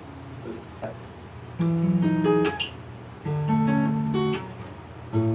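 Acoustic guitar played fingerstyle: after a quiet start, a short phrase of ringing notes comes about one and a half seconds in, and a second phrase a little after three seconds.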